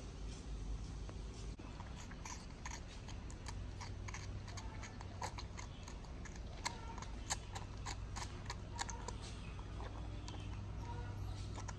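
A baby monkey eating from a spoon and gnawing on it: a run of small irregular clicks and taps, thickest in the middle, over a low steady hum.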